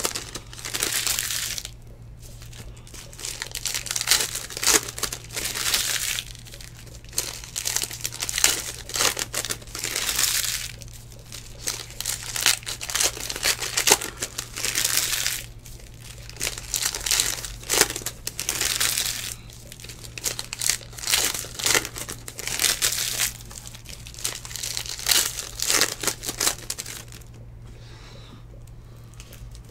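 Foil trading-card pack wrappers crinkling and tearing, with cards rustling as they are handled and dealt onto a pile. It comes in short bursts every second or two and stops near the end.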